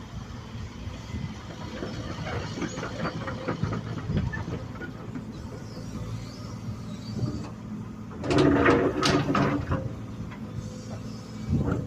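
Excavator diesel engine running steadily. About eight seconds in, and again near the end, there is a louder burst of scraping and clatter as it works the ground.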